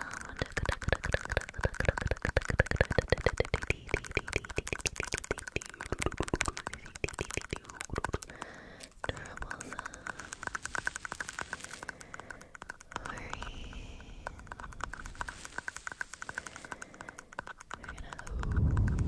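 Fingertips and nails tapping and scratching on a microphone in quick, dense clicks. Near the end a louder low rumble of handling noise comes in.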